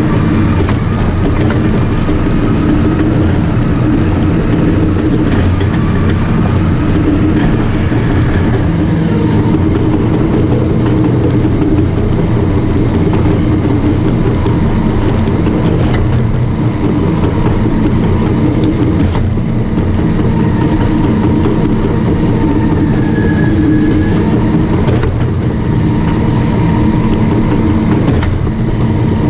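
Caterpillar D5 bulldozer's diesel engine running steadily and loudly.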